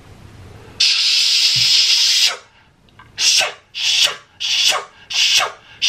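A man taking a long, loud, hissing breath through his mouth for about a second and a half. From about three seconds in come short, sharp breaths through bared teeth, roughly three every two seconds, each falling away in pitch.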